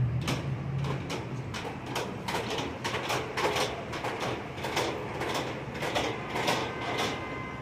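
Subway train wheels clattering over rail joints, a steady run of sharp clanks about three a second.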